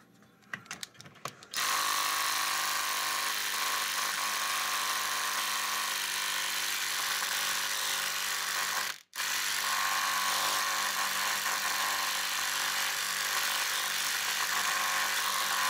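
A small cordless impact driver hammering on a shock-mount bolt in a snowmobile's rear skid, after a few light clicks. It runs steadily for about seven seconds, stops briefly, then hammers again for as long, without breaking the bolt loose.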